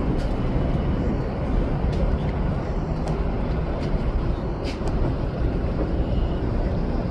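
Steady low rumble of a vehicle, with a few faint clicks.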